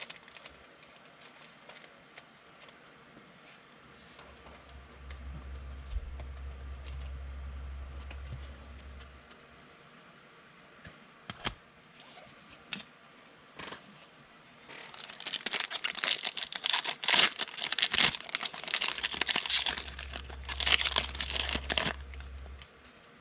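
A trading-card pack wrapper being torn open and crinkled, a dense crackling run that fills the last third and is the loudest part; before that, scattered small clicks and taps from cards being handled, with a low hum that comes and goes.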